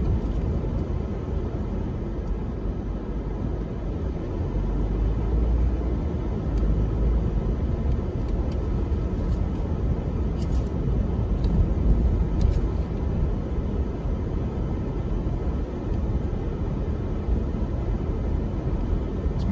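Steady low rumble of road and engine noise inside a car cabin while driving slowly down a town street.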